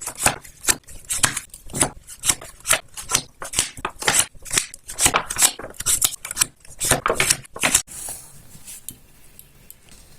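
Rapid scratchy strokes of a drawing tool on paper, several a second, as in quick sketching or shading; they stop about eight seconds in.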